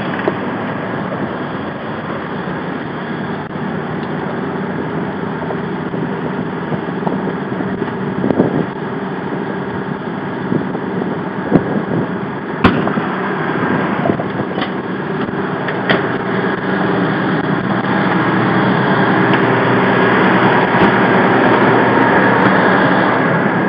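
Fire apparatus engine running steadily at a car fire, with several short sharp pops in the middle. The engine noise grows louder toward the end.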